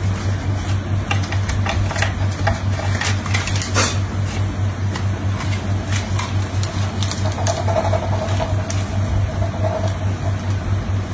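A low, steady mechanical hum that pulses at a fast, even rhythm, with a few light rustles and clicks over it in the first few seconds.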